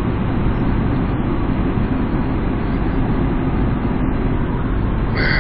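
Steady road and engine noise heard inside a moving car's cabin, a low rumble without break.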